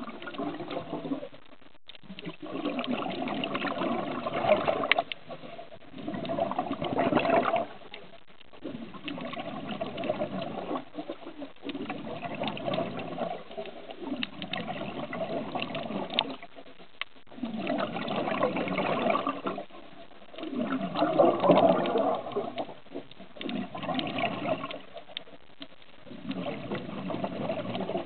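A diver's exhaled breath bubbling and gurgling underwater, in bursts that come and go every three to four seconds with breathing.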